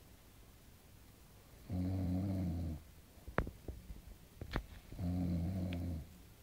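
A sleeping pet snoring: two long, low snores about three seconds apart, each lasting about a second, with a few faint clicks between them.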